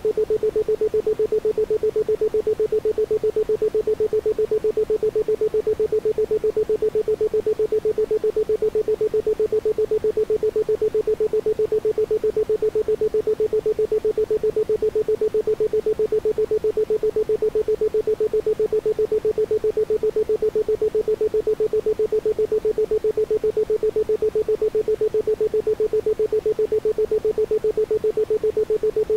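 Isochronic tone: a single steady 432 Hz tone switched on and off in rapid, even pulses, several a second, with no other sound.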